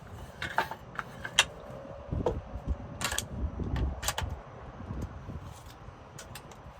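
Scattered clicks and knocks from tools being handled, over a steady low rumble; the sharpest click comes about one and a half seconds in, with more about three and four seconds in.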